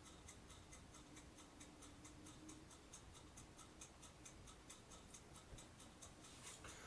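Near silence: room tone with a faint, regular ticking, about four ticks a second.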